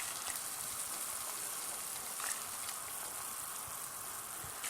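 Okra stew in tomato sauce sizzling steadily in a pan on the stove, with a couple of faint clicks.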